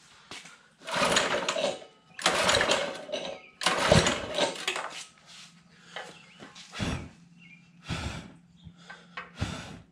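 Recoil pull-starter on a mini bike's small single-cylinder engine, yanked three times hard, each pull about a second long, then three shorter, weaker pulls near the end. The engine turns over but does not run: the spark plug is out and grounded to check for spark.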